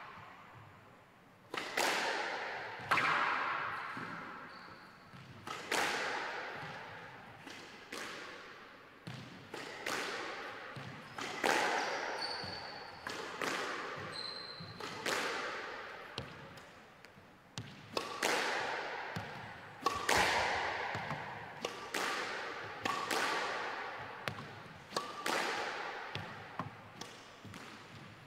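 Squash ball being hit back and forth in a warm-up rally: a steady run of racket strikes and ball smacks off the walls, about one a second, each ringing with a long echo inside the squash court.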